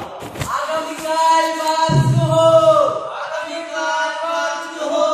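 Voices chanting in long held notes that slide down at their ends, with a deep low sound coming in about two seconds in.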